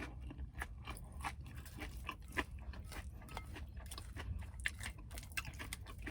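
A person chewing crunchy food, with many sharp, uneven crunches.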